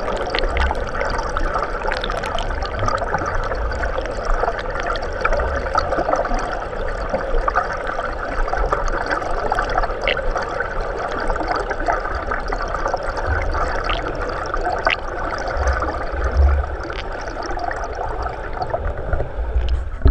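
Pool water churned by front-crawl swimmers, heard from underwater through the camera's housing: a steady muffled rush and bubbling, with scattered faint clicks and a few low thuds.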